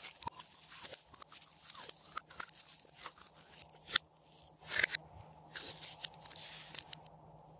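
Blue glossy slime squeezed and pressed by hand, giving a run of sticky crackles and small pops, with one sharp pop about four seconds in.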